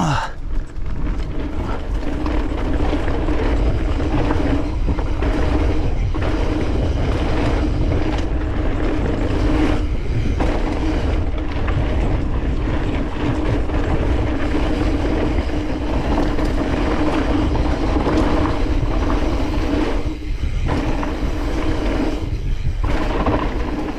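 Mountain bike riding down a dirt trail at speed: wind rushing over the camera microphone, with a steady tyre hum and the rattle of the bike over the ground. The noise drops away briefly twice near the end.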